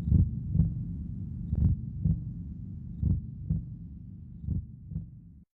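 Low double thumps in a heartbeat rhythm over a low hum, about one pair every second and a half, closing an indie rock track. They fade and then cut off suddenly near the end.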